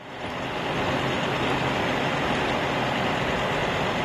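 Road traffic: pickup trucks driving past, a steady wash of engine and tyre noise that fades in at the very start.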